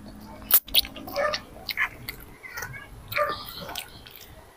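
Children chewing instant pancit canton noodles close to a clip-on microphone, with wet mouth smacks and sharp clicks coming at irregular moments.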